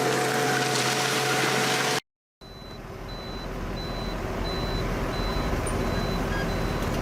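A heavy machine's engine hums steadily for about two seconds and cuts off abruptly. After a short gap comes a heavy truck's diesel engine rumbling, slowly getting louder, under a reversing alarm beeping evenly about twice a second.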